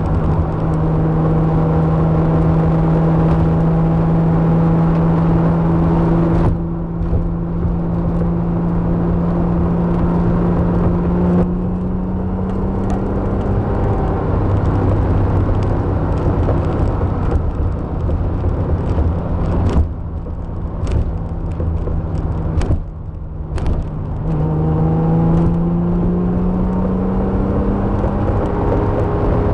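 Nissan L28 straight-six engine heard from inside the car while driving, muffled. Its note climbs steadily under throttle, eases off about six seconds in and again near twelve, holds lower and steadier through the middle, then climbs again near the end, over road noise.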